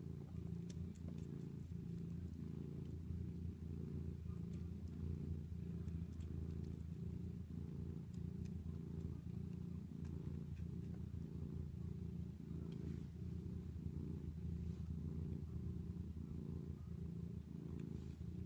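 Steady, low purring of a tabby mother cat lying still while her kittens nurse.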